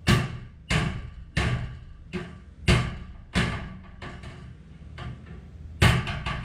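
Background music: sharp percussive hits about every 0.7 s, running into a dense drum beat near the end.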